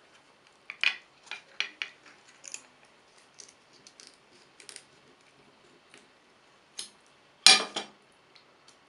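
Scissors snipping through the thin plastic of a soda bottle moulded around set gelatin: a quick run of short snips in the first few seconds, then sparser ones. About seven and a half seconds in comes one louder, half-second noise.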